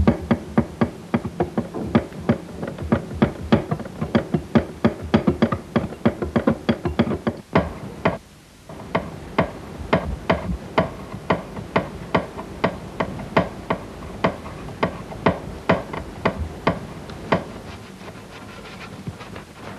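A rapid run of sharp knocks, about four a second, like percussion in a film score, breaking off briefly about eight seconds in.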